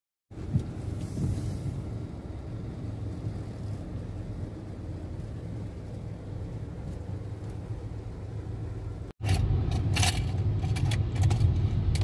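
Road and engine noise heard inside a moving car's cabin: a steady low rumble, louder after a cut about nine seconds in, with scattered clicks and taps on top.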